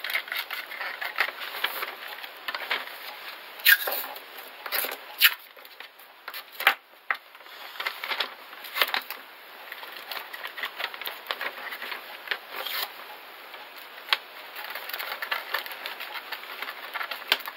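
Yellow masking tape and paper crinkling and crackling as they are handled and pressed onto a plastic model part, in irregular rustles with scattered sharp snaps.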